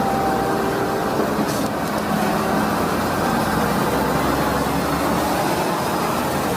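Concrete mixer truck engine running steadily, a dense even engine noise with faint steady hum tones and no change in pace.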